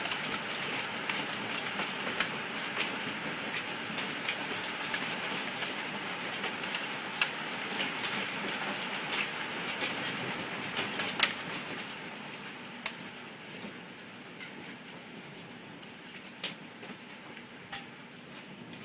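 Hailstones pelting a patio: a dense clatter of sharp ticks over a steady hiss of falling hail. About twelve seconds in it eases, going quieter with sparser, scattered hits.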